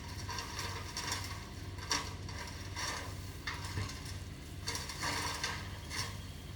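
Diesel engine of heavy construction equipment running steadily, with repeated bursts of scraping and rattling as stone is worked.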